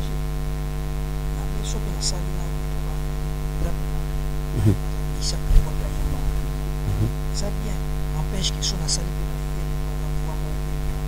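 Loud, steady electrical mains hum with a dense stack of overtones, burying a man's speech so that only faint fragments and s-sounds come through.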